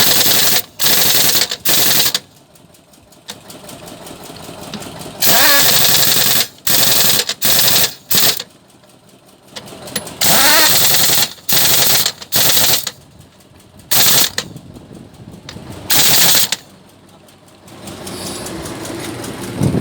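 A 1-inch pin-less hammer air impact wrench firing in repeated short bursts of rapid hammering, each lasting from a fraction of a second to about a second, with its trigger pulled and let go again and again.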